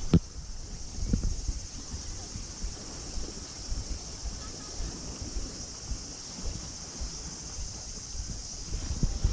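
Insects chirping in a steady, high-pitched trill, with a low rumble of wind on the microphone underneath. A soft thump just after the start and another about a second in.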